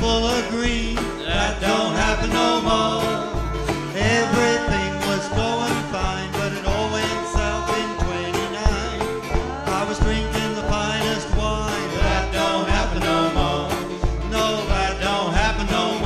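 Small acoustic band playing live: banjo and acoustic guitar strumming over a steady two-to-a-second upright bass beat, with a voice singing the melody.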